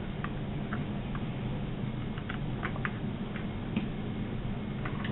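Faint, scattered small clicks and taps of a wire and operating tool being worked into WAGO spring-clamp (cage clamp) terminals, over a steady low hum.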